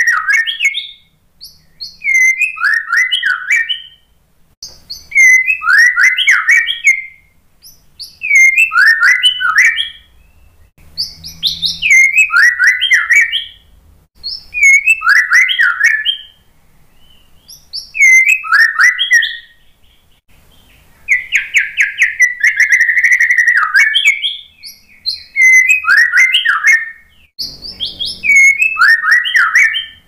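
White-rumped shama singing: loud phrases of whistles, falling notes and fast trills, repeated about every three seconds, with one longer trill about two-thirds of the way through.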